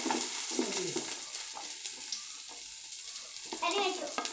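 Sliced onions frying in hot ghee with a steady sizzle, just tipped into the pan.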